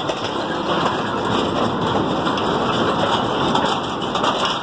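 Steady rushing noise of wind on the microphone while moving along a dirt track.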